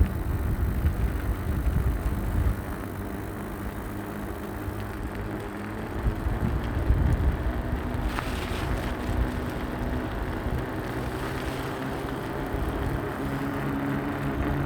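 Rolling vehicle: a heavy low rumble with wind on the microphone for the first couple of seconds, then a steady low motor hum that grows stronger near the end.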